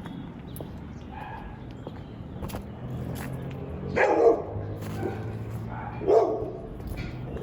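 Two short, loud animal calls about two seconds apart, over a low steady hum.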